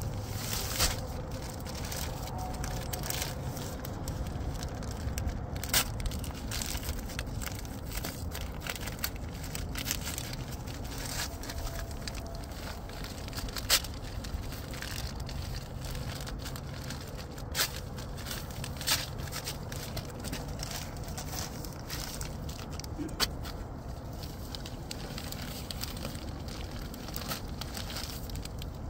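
Irregular crackling and scraping with scattered sharp clicks, from a bag of patching mix being mixed with water in a bucket, over a steady low hum.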